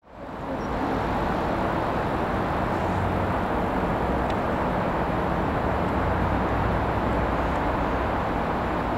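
Class 67 diesel locomotive approaching, its EMD two-stroke V12 engine giving a steady low drone under a broad rushing noise. The sound fades up from silence within the first half second.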